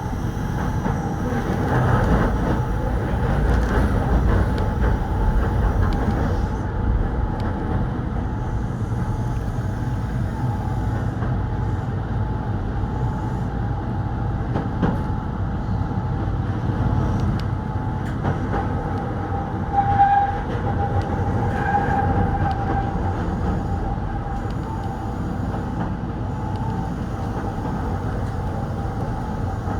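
Keihan 800 series electric train running on the rails: a steady rumble with a faint whine that rises briefly into a louder squeal about twenty seconds in.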